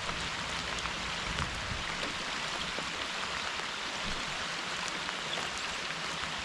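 Steady rain falling: an even hiss with scattered tiny drop ticks.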